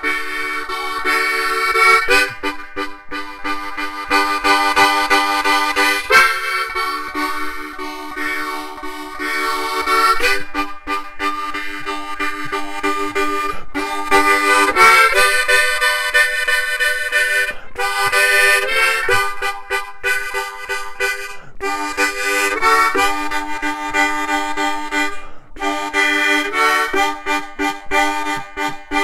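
Harmonica playing a tune, several notes sounding together as chords, in phrases with brief breaks between them.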